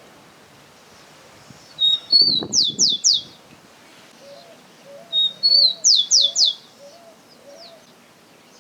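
A songbird singing two phrases, each a short high note followed by three or four quick downslurred whistles, with a soft low call repeated about twice a second between them.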